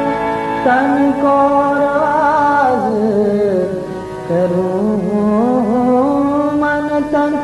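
Background music from a devotional bhajan: a melody of long held notes that glide and waver between pitches.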